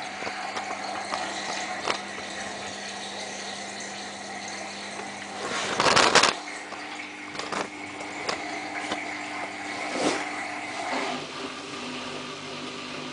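Samsung WF8804RPA washing machine starting a test spin: a steady machine hum, with a loud rushing burst of water and air about six seconds in and scattered clicks. The hum steps to a different pitch after the burst and again near the end.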